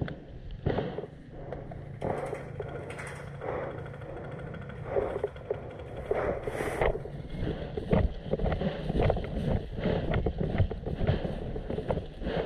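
Rustling, scuffs and knocks of a worn action camera as its wearer crouches and then moves among tyre stacks, with irregular knocks coming thicker in the second half.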